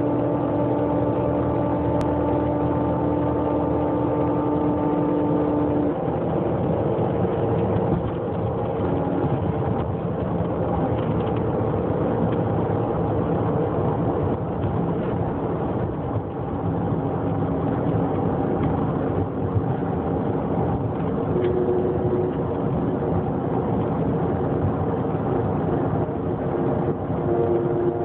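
An engine or motor running steadily, with a hum of several steady tones over a rumble. The tones shift to a new pitch about six seconds in.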